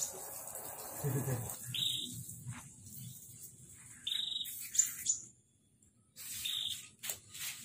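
Small caged songbirds chirping: a short high call repeats about every two seconds, with sharper, higher chirps in between.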